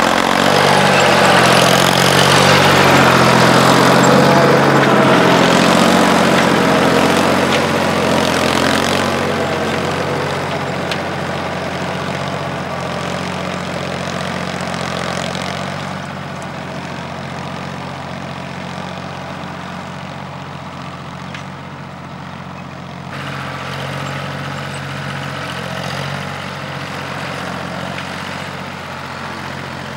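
Ford 4600 tractor's diesel engine running steadily while ploughing. It is loudest for the first ten seconds or so, with a rattly noise on top, then quieter and steady.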